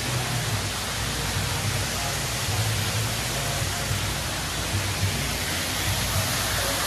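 Steady rushing of water from a pool's artificial rock waterfall, with a low hum underneath.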